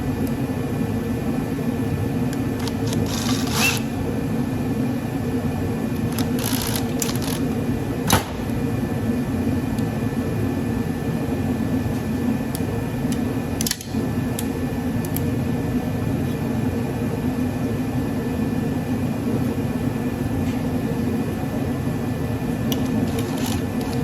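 Steady hum of a running heater's fan, with a few short clicks and knocks of parts being handled.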